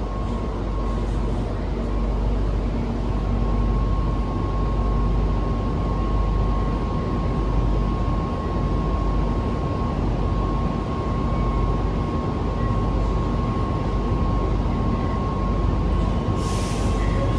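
Shanghai Metro 13A01 train running at speed in a tunnel, heard inside the car: a steady low rumble of wheels on rail with a constant whine. A short hiss comes near the end.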